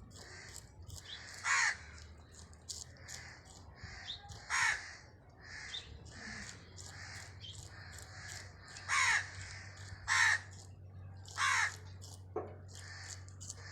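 Five short, harsh animal calls, each falling in pitch, spaced irregularly over a faint steady hum.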